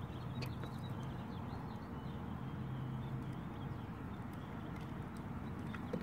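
Steady outdoor background noise: a low hum with faint high chirps and a few light clicks.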